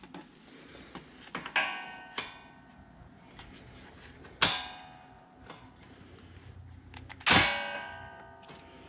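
Metal striking metal during wrench work: four sharp clangs, each ringing on briefly. Two come close together about one and a half to two seconds in, a louder one at about four and a half seconds, and the loudest near the end, ringing for over a second. Small clinks fall between them.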